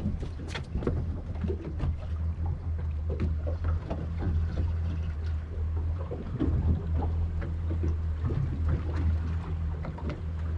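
Twin Mercury Verado 300 V8 outboard engines idling with a steady low hum, with scattered small knocks over it.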